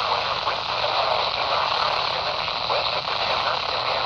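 RadioShack 12-254 NOAA weather radio on WXJ20 (162.400 MHz), hissing with heavy static from a weak, distant signal that shares its channel with another station. A faint broadcast voice is buried under the noise.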